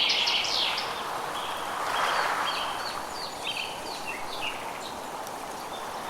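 Forest ambience: several birds singing, with a quick run of high, falling notes at the start and scattered short chirps later, over a steady hiss that swells briefly about two seconds in.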